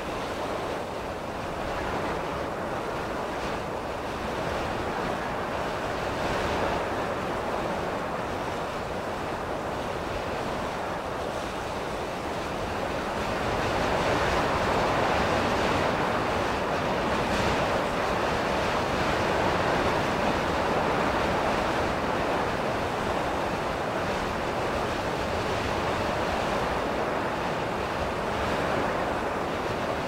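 Strong gusty wind blowing as a continuous rush that swells and eases, growing louder about halfway through.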